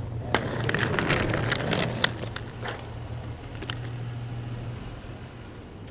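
Inline skates rolling and scraping on rough asphalt close by, with a steady low rumble from the wheels and a run of gritty crackles and scrapes in the first two seconds. The rolling dies away shortly before the end as the skater stops.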